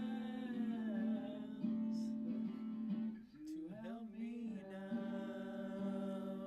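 Acoustic guitar accompanying a voice singing long held notes, with a sliding, wavering phrase a little past the middle.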